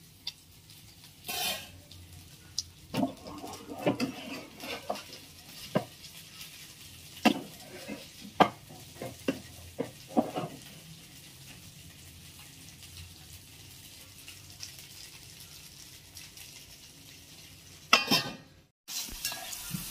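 Marinated black pomfret (halwa) pieces sizzling as they shallow-fry in a non-stick pan, with scrapes and knocks of a spatula turning them through the first half. Near the end, a loud clatter as a steel lid goes onto the pan.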